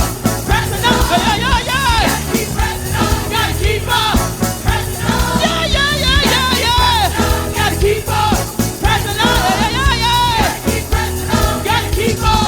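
Live church worship music: a praise team singing a Christian song with band accompaniment and a steady beat.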